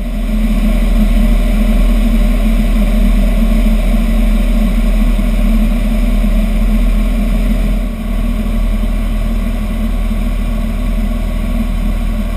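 Robin DR400 light aircraft's piston engine and propeller droning steadily inside the cockpit. The engine note shifts about eight seconds in.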